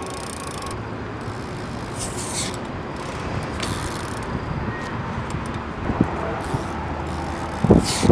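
BMX bike tyres rolling and scuffing on concrete, with a couple of brief hissing scuffs, under wind rumbling on the microphone. The wind rumble gets louder near the end.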